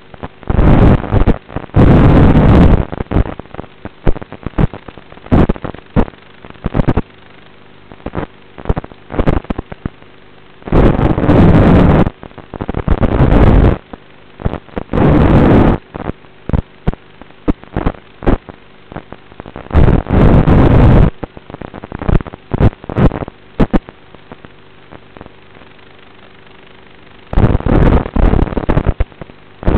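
Small FPV racing quadcopter's motors heard through the onboard camera's microphone over the analog video link: a low steady hum broken by loud, distorted bursts about a second long, several times, as the throttle is punched.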